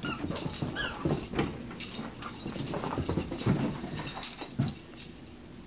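A plush dog toy's squeaker gives a few short squeaks in the first second, amid irregular thumps and scuffling as a small dog wrestles and shakes the toy, whose head holds a rubber ball.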